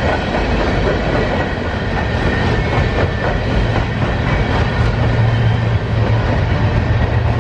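Freight train passing close by: Union Pacific mid-train DPU diesel locomotives (GE wide-cab units) rolling past between empty coal hoppers. Steel wheels rumble and clack over the rail joints under a low engine drone that grows stronger about halfway through as a locomotive goes by.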